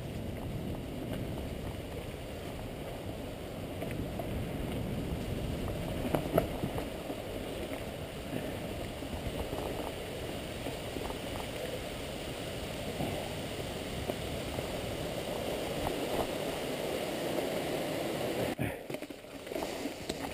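Mountain bike riding fast down a leaf-covered dirt trail: a continuous rushing noise of tyres and air, with the bike rattling over bumps and a sharp knock about six seconds in. The rush drops briefly a little before the end.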